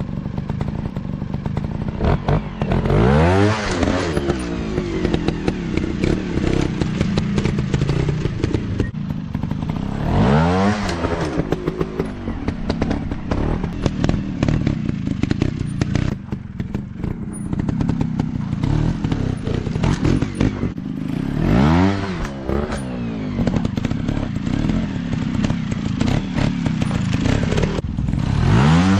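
Dirt bike engine running on a trail, revving up and dropping back four times, with knocks and clatter throughout.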